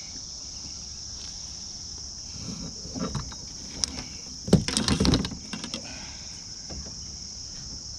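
A cluster of knocks and rattles against a kayak as a channel catfish is landed and handled, loudest about four and a half to five seconds in. Insects keep up a steady high drone throughout.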